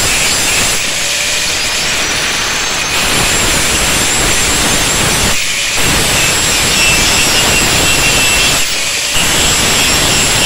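Handheld angle grinder grinding the steel of an old saw blade, a steady high whine over a loud grinding hiss. The grinding noise thins briefly a couple of times.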